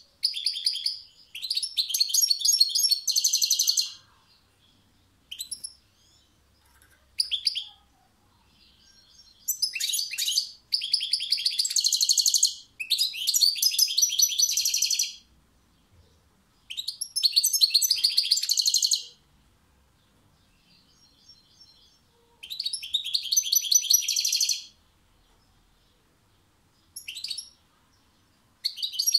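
European goldfinch singing: several bouts of rapid, high twittering song a few seconds long, separated by short pauses with single call notes in between.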